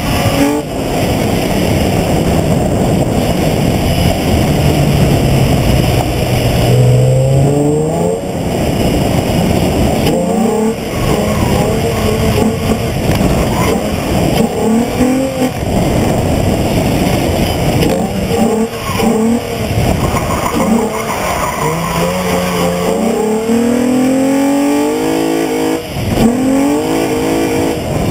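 Nissan 350Z's 3.5-litre V6 revving up and falling back again and again as the car drifts, with its tyres skidding and squealing, heard from a camera mounted low on the front lip.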